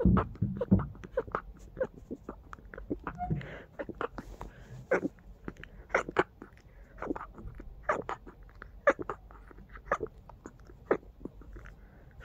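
A person's short, muffled nose-and-mouth sounds, stifled sneezes and sniffles from a sneezing fit, coming irregularly about once a second.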